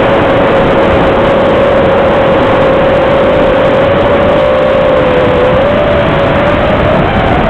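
X250 quadcopter's electric motors whining at a steady pitch under a loud, rough rush of noise; the pitch wavers a little and rises near the end.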